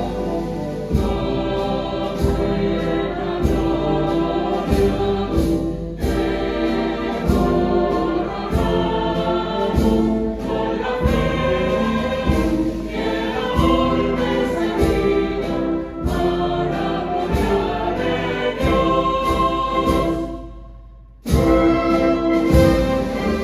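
A choir singing a hymn with a wind band accompanying, drum strokes marking the beat. About three-quarters of the way through the music fades almost away, then the full band comes back in loudly.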